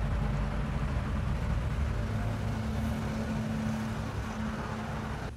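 Steady hum of the electric motor of a makeshift wood lathe turning a bed post. A faint steady whine comes in about halfway and fades near the end.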